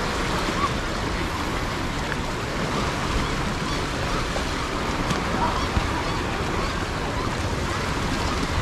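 Small waves washing on a beach, a steady even rush of surf.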